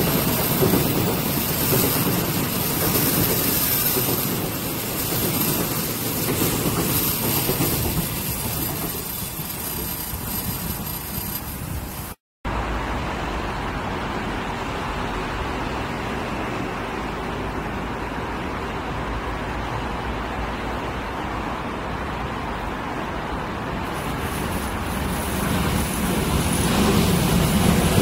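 Seoul Subway Line 3 electric train running past on the track, its rumble fading away over the first dozen seconds. The sound cuts out for a moment, a steadier, lower rumble follows, and another train approaches, growing louder near the end.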